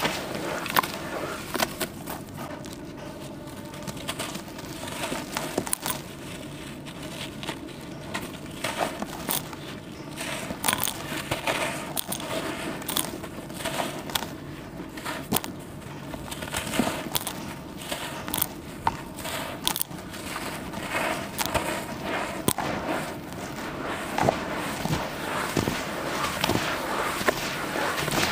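Hands crumbling and squeezing charcoal slabs in water: wet, squelching crushing with a dense, irregular crackle of small clicks as pieces break apart.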